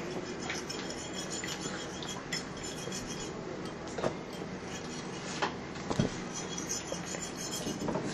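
Kitchen utensils and dishes being handled, with clinks and scraping and a few scattered sharp knocks.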